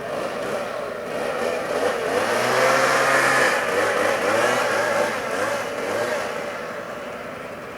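Hill-climb race car engine revving hard, its pitch repeatedly climbing and dropping with gear changes, growing louder and then fading away.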